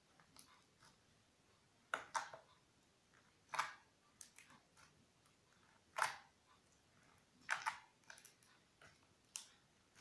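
Glue-and-borax slime being kneaded and stretched by hand, giving irregular sticky clicks and pops, about half a dozen louder ones spread through with fainter ones between.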